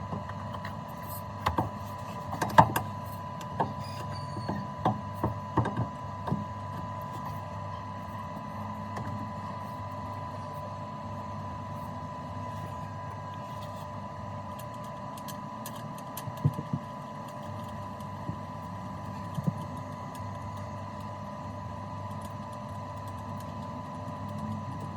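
Scattered sharp clicks and knocks, a cluster in the first six seconds and a couple more later, over a steady low hum and a faint steady high-pitched tone.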